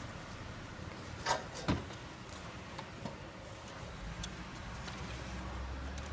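Metal knocks and clinks as an exhaust manifold with its catalytic converter is worked free of the cylinder head and lifted out; the two loudest knocks come close together about a second and a half in, followed by a few faint ticks.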